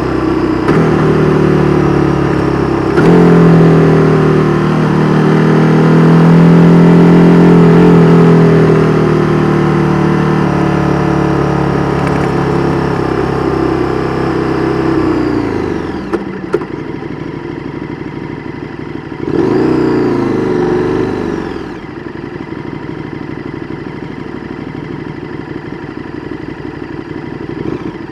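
KTM 1290 Super Duke R Evo's 1301 cc V-twin running through an Austin Racing V3 Mini exhaust, pulling loud under acceleration for the first half before the revs drop away about fifteen seconds in. A short rev rises and falls about twenty seconds in, then the engine settles to a lower, quieter run and picks up again at the very end.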